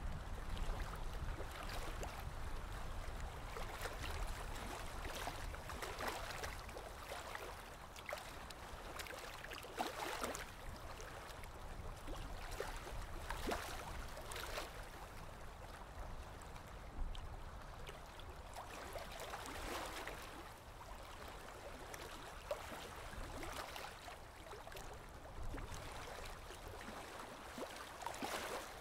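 Aquarium water bubbling and trickling steadily, with irregular small pops of rising air bubbles.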